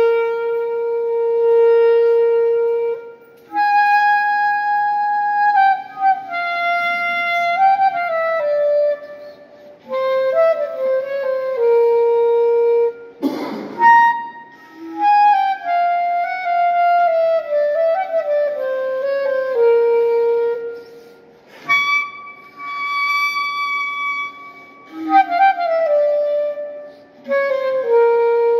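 Solo clarinet playing slow melodic phrases: long held notes and falling stepwise runs, with short breaks between phrases. A brief rushing noise cuts in about halfway through.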